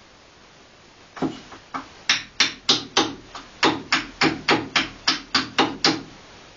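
Hatchet hewing a wooden spoon blank on a chopping block. After about a second of quiet, it makes a quick, regular run of sharp chopping strikes, about three a second.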